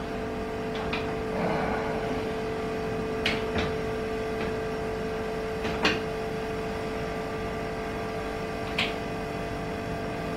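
Front-loading washing machine giving a steady electrical hum, with a few light, sharp clicks as its dial and buttons are worked.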